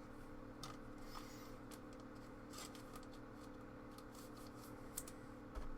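Faint flicks and light scrapes of trading cards being handled and slid through an opened pack, over a steady low hum.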